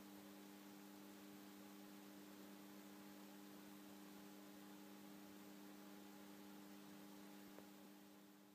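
Near silence: a faint steady low hum with a soft hiss, fading out near the end.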